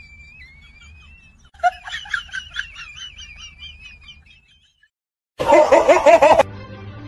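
A high-pitched comic laughter sound effect in two runs of quick 'ha-ha' syllables. After a moment of silence comes about a second of loud, pulsing goose honking used as a laughing meme, and then background music starts.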